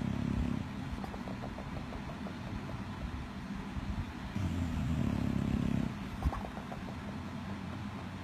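Bulldog snoring: long, loud, low snores that come back about every four and a half seconds, one fading just after the start and another about four and a half seconds in lasting a second and a half, with quieter rattly breathing in between.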